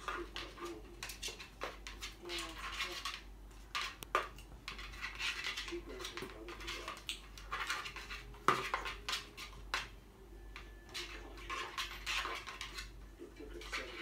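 Blue-fronted Amazon parrot chewing, scratching and tearing at a cardboard box with its beak, a run of scratchy rustling and clicks, with two sharp knocks about four and eight and a half seconds in.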